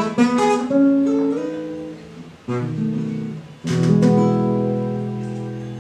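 Nylon-string classical guitar played solo: a quick run of plucked notes at the start, then two strummed chords about a second apart, each left to ring and fade.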